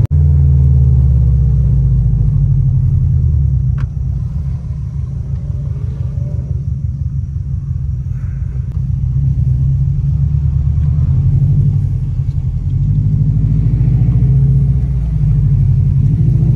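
Subaru flat-four engine and tyre noise heard from inside the cabin while driving: a steady low drone that rises and falls with the throttle. A single click comes about four seconds in, and the drone turns quieter for several seconds after it before building again.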